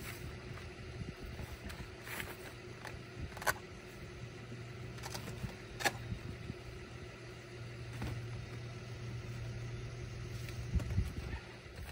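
Engine idling steadily nearby, with a few sharp clicks and knocks as a portable folding solar panel is handled and propped up on a tarp.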